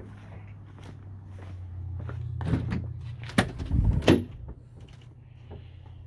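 Loose engine parts being handled and set down on a workbench: a few light clicks, then two sharp knocks and a heavy thud in the middle, over a steady low hum.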